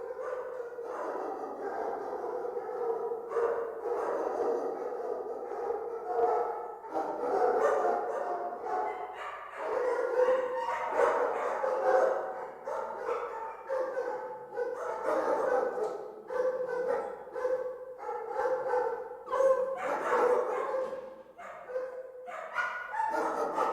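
Many dogs barking and yelping at once in a kennel, their barks overlapping in a continuous din with louder barks standing out every second or so.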